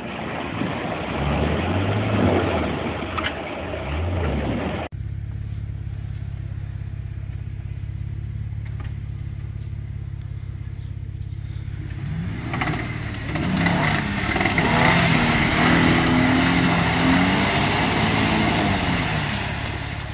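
Jeep Wrangler engines off-road: first an engine revving up and down as the Jeep drives through mud, then an engine idling steadily. About two-thirds of the way through, an engine revs up and down repeatedly over a loud rushing noise of spinning tyres in mud.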